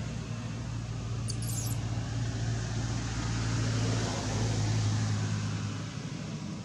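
A motor vehicle engine running with a steady low hum, growing louder toward the middle and easing off near the end. A brief high squeak about a second and a half in.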